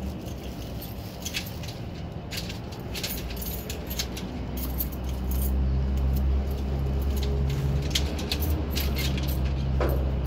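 A cat chewing food taken from a hand: irregular small clicks and crunches. Under it runs a low steady vehicle rumble that gets louder about halfway through.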